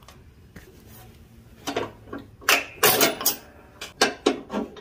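Metal clinks and rattles of a hairpin clip and pin being worked out of the mower deck's hanger bracket: a quick string of sharp clicks starting about a second and a half in.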